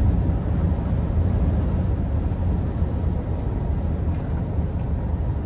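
Inside a lorry cab at cruising speed: the truck's diesel engine gives a steady low drone, mixed with tyre and road noise.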